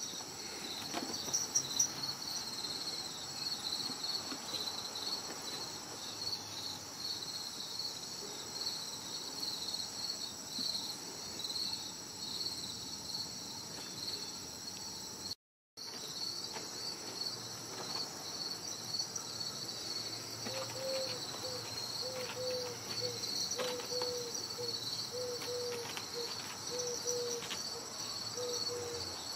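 Crickets chirping in a steady, high, pulsing chorus. A lower call repeats about twice a second from about two-thirds of the way through, and the sound cuts out briefly just past the middle.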